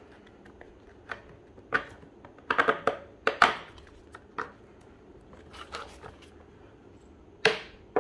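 Handling noise from fitting a vinyl cushion onto a plastic child bike seat: a string of short, irregular rustles, scrapes and clicks as bolts are pushed through the padding and seat holes.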